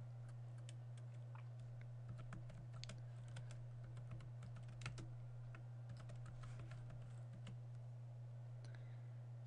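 Computer keyboard typing: a run of light key clicks starting about two seconds in and stopping shortly before the end, over a steady low electrical hum.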